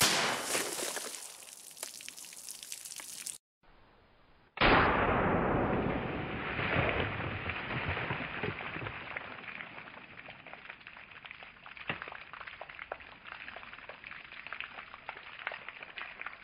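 Sudden loud burst as a 5.56 M855 rifle round strikes a row of water-filled plastic jugs, water spraying out and dying away over about three seconds. After a cut, a second such burst, then water splashing and dripping off the table with scattered drip ticks, fading slowly over about ten seconds.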